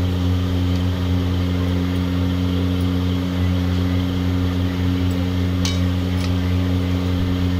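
Electric kitchen mixer grinder running with a steady hum, coarsely grinding roasted green chillies with garlic. A couple of faint clicks come about midway.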